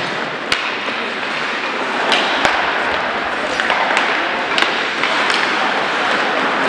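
Ice hockey play on a rink: a steady scraping hiss of skates on ice, broken by several sharp clacks of sticks on the puck.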